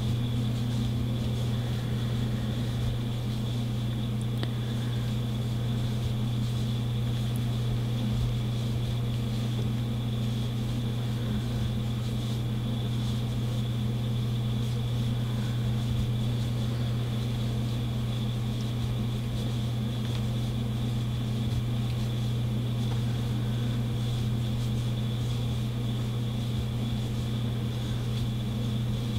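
A steady low hum with a fainter high whine above it, unchanging: background room or equipment noise.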